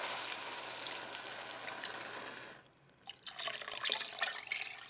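Liquid poured from a glass measuring cup into a pot: first tomato juice, then, after a short break about two and a half seconds in, stock splashing into the chopped tomatoes.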